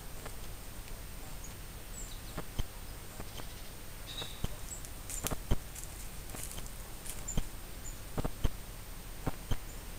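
Dry fallen leaves crackling and rustling under the hooves and muzzles of white roe deer stepping and foraging through the leaf litter, in irregular short clicks over a steady faint hiss.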